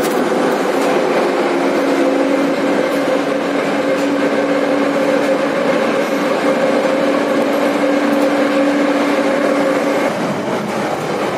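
Moscow metro train running, heard from inside the carriage: a steady whine from the train over the rumble of wheels on rails. The whine stops about ten seconds in, leaving the rail rumble.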